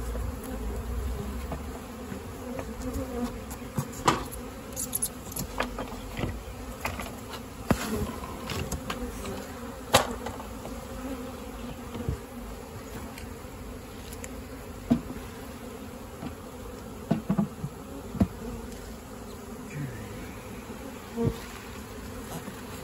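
A swarm of honey bees buzzing in flight around a hive box they have just been shaken into, a steady hum with a few sharp knocks scattered through it.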